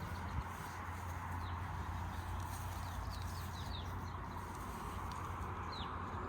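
A few short, high bird chirps sliding down in pitch, about three seconds in and again near the end, over a steady outdoor hiss.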